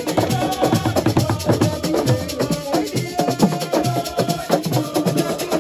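Assiko music: drums and shakers playing a fast, dense rhythm under singing voices.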